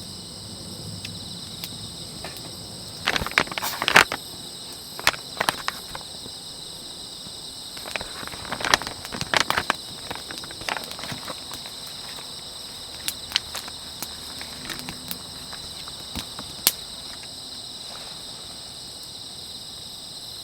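Insects, likely crickets, singing in a steady high chorus, with scattered sharp clicks and knocks close by, clustered about three seconds in and again around eight to ten seconds.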